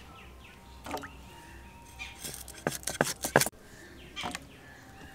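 A blade chopping into a raw green mango to split it in half, its stone already hard: a series of sharp knocks, a few spaced out and a quick cluster in the middle.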